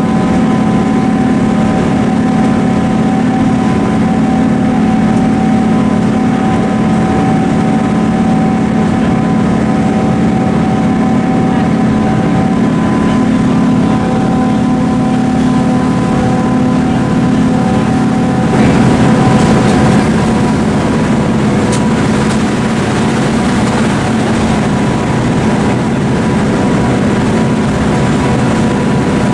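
Cog railway train's engine running steadily as the train climbs, heard from inside the passenger car: a loud low drone with a held hum. About two-thirds of the way through, the hum gives way to a rougher, noisier rumble that is briefly a little louder.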